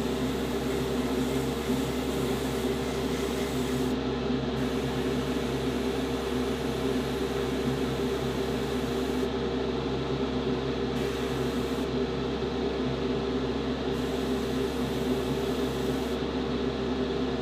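Airbrush spraying test passes of a lightened paint mix: a hiss of air that stops and starts several times, over a steady machine hum.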